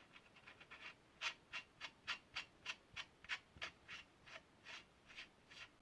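Light metallic clicks, about three a second, as a bottom bracket lock ring is screwed by hand onto the threaded adjustable cup.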